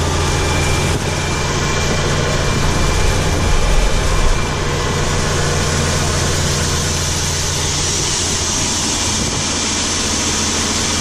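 Farm tractor engine running steadily with the PTO engaged, driving the auger.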